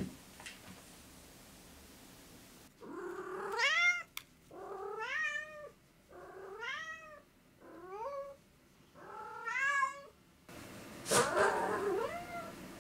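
Domestic cat meowing over and over: five drawn-out meows, each rising in pitch, from about three seconds in, then a louder meow near the end.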